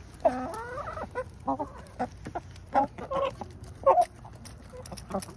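Chickens clucking while pecking mealworms from a hand: a drawn-out call in the first second, then a string of short clucks about every half second.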